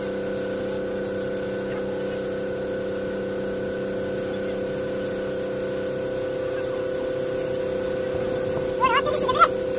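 Boat engine running steadily, a constant droning hum. A brief voice calls out about nine seconds in.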